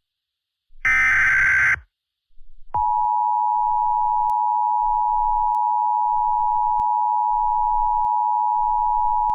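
An Emergency Alert System SAME header data burst, a harsh digital screech about a second long. After a short silence the EAS attention signal starts: a steady, loud two-tone tone (853 and 960 Hz) held unbroken.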